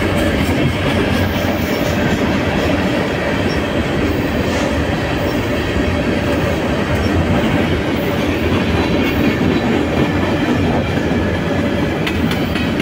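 CPKC manifest freight train passing at close range: a steady, even rumble of the train rolling on the rails.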